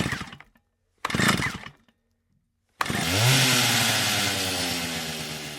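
Small gasoline engine: two short bursts, then about three seconds in it starts suddenly, its pitch rising briefly before running steady, and it gradually fades toward the end.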